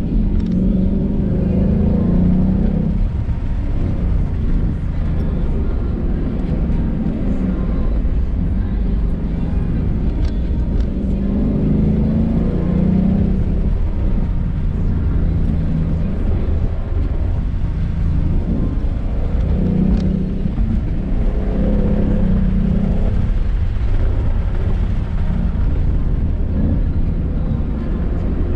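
Car driving hard on a winding road: a steady low rumble of engine and road noise, with the engine note swelling and fading several times as the throttle is worked.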